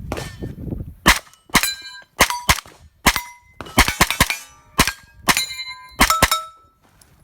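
About a dozen rapid gunshots from a 9mm pistol-caliber carbine, fired in uneven strings, each followed by the ringing clang of a hit steel target.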